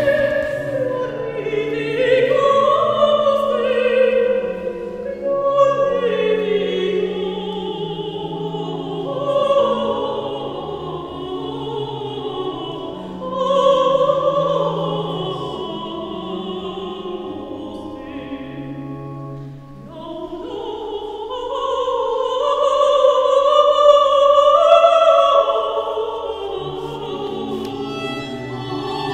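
Small classical vocal ensemble singing in a church: a woman's voice and men's voices in slow, sustained lines with vibrato. The music dips briefly about two-thirds through, then swells to its loudest.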